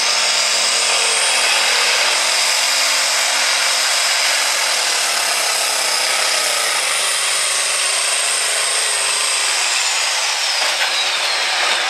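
John Deere heavy super stock pulling tractor's turbocharged diesel engine running flat out under load as it drags the sled. A high-pitched turbo whistle climbs in the first two seconds, holds, and falls away near the end as the pull winds down.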